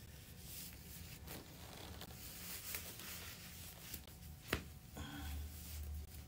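Faint rustling of cloth as long socks are pulled up and adjusted by hand, with one sharp click about four and a half seconds in.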